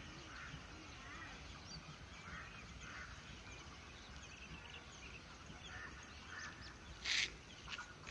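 Faint outdoor ambience with birds calling now and then, and a brief louder noise about seven seconds in.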